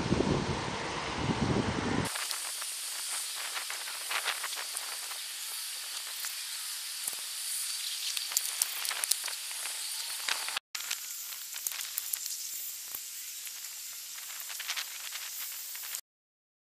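Wind buffeting the microphone outdoors, then, about two seconds in, an abrupt switch to a crackling hiss full of small pops. The hiss breaks off for an instant about two-thirds of the way through, then runs on and cuts off shortly before the end.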